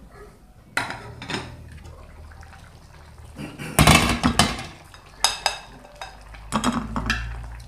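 Cookware lids clanking on pots on a gas stove, as an aluminium lid is set on a pot and a glass lid is lifted off a pan. It is a run of separate clanks, the loudest about four seconds in.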